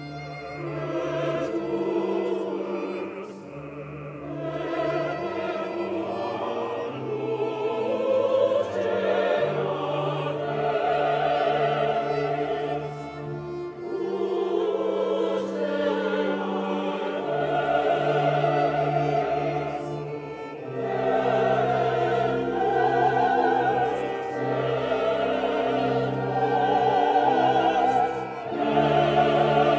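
Mixed choir singing a Requiem with pipe organ and viola accompaniment: long held low notes under sustained sung phrases with vibrato, swelling and easing between phrases.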